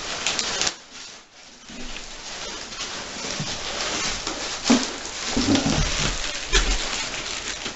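Packing material being handled: shredded paper and cardboard rustling and crackling, with a few dull thumps in the second half.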